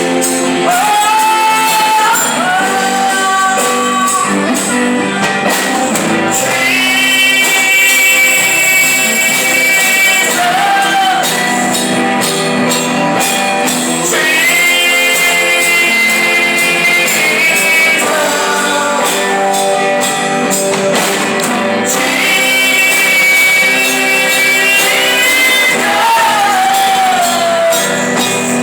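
A woman singing a song live with band accompaniment, holding long notes that bend and slide in pitch.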